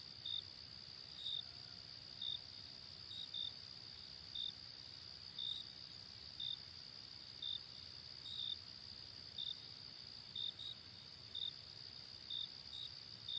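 Faint night-time cricket chorus: a steady high insect trill with a short chirp about once a second. It cuts off suddenly at the end.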